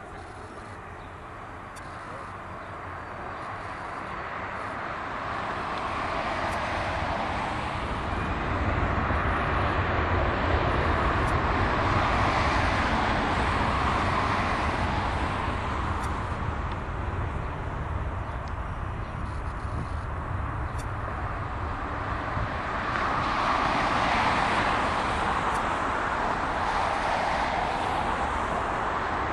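Boeing 737-500's CFM56 jet engines at takeoff thrust during the takeoff run. The jet noise builds over the first several seconds, then holds loud and steady, swelling twice as the airliner goes by.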